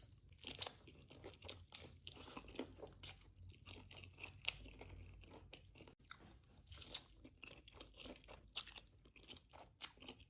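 Crunching and chewing of crispy breaded boneless fried chicken: many quick, crisp crunches, with a brief break about six seconds in.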